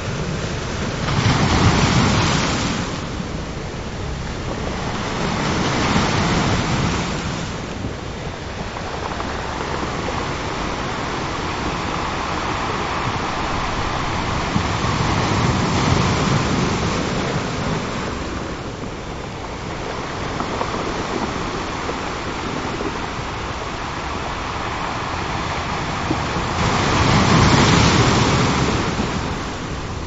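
Ocean surf: waves rolling in and breaking in a continuous wash of water that swells and subsides every few seconds. The biggest swells come near the start and near the end.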